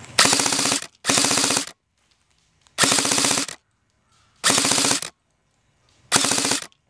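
Airsoft gun firing five short full-auto bursts, each under a second long, with gaps of about a second between them.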